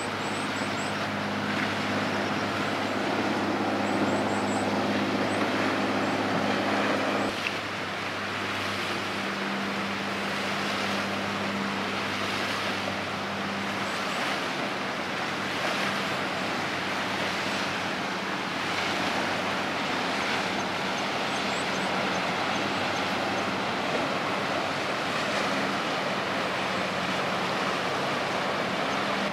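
Steady low drone of ships' diesel engines over the wash of water, the sound changing suddenly about seven seconds in.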